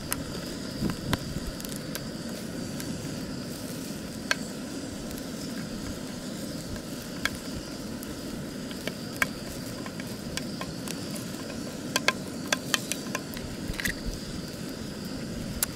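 Swiss Army knife can opener being levered forwards around the rim of a tin can, giving short sharp metal clicks at irregular intervals, several in quick succession near the end, over the steady hiss of the cooking fire.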